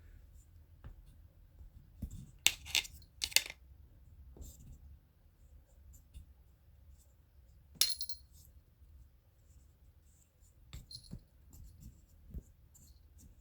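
Back scratchers clacking and rattling as they are knocked about: a quick cluster of sharp clacks a couple of seconds in, one hard clack around the middle, and lighter taps near the end.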